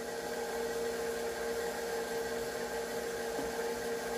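Electric stand mixer running steadily, its wire whisk beating cake batter in a stainless steel bowl; a steady motor hum and whine.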